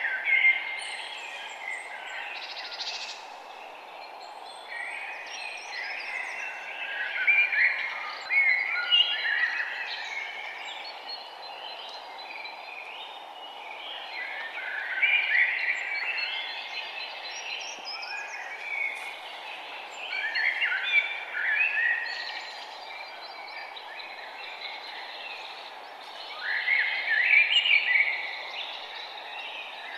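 Forest birds singing: bursts of busy, warbling song a couple of seconds long come every five or six seconds, over a steady background hiss.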